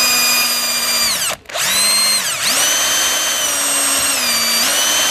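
Electric drill turning a small diamond grinding point at slow speed, recutting the eroded float needle-valve seat of a GE Monitor Top refrigerator's float chamber to stop the valve bypassing. The motor whine stops briefly about a second and a half in, then starts again and runs on, sagging in speed twice and picking back up.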